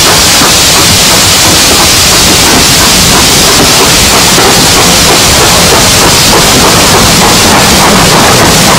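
Steam-hauled train running, heard from an open carriage window as a loud, steady rushing hiss of steam and passing air with wheel noise, as it passes a standing GWR tank locomotive with steam drifting off it.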